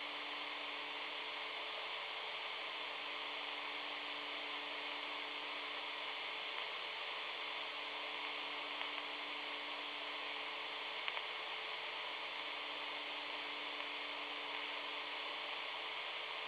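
Steady hiss of FM radio static from a Motorola M-120 VHF mobile radio, with two faint steady hum tones underneath and no speech.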